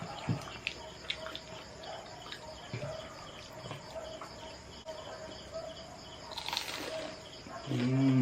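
Insects chirping in the background: a regular high ticking over a faint steady tone, with a few soft scattered clicks and a brief rustling burst near the end.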